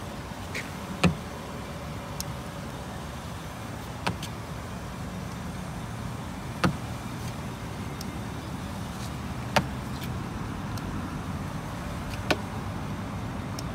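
Five sharp clicks, roughly every three seconds, as a handheld paint thickness gauge's probe is pressed against the pickup's steel body panels to take readings, over a steady low hum.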